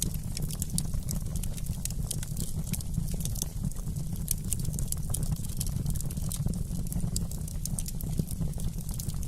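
Wood fire burning in a fireplace: a dense stream of small, sharp crackles and pops over a steady low rumble of the flames.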